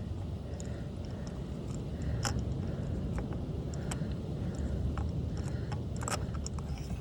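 Spark plug being unscrewed by hand on a socket extension: light scraping with a few sharp clicks over a steady background hiss.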